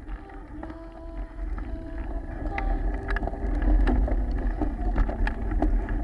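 Wind buffeting the microphone of an action camera riding on a mountain bike, with a low rumble and sharp rattling clicks from the bike jolting over a rough road. It grows louder from about halfway through.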